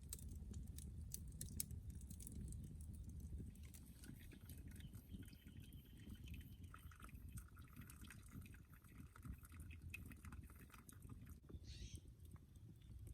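Faint night ambience: a low steady rumble with scattered small clicks and crackles, and a faint thin chirring in the middle stretch.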